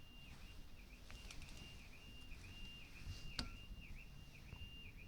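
Distant car alarm going off: a faint, steady high tone broken by short, regular dips. There is a sharp click about three and a half seconds in.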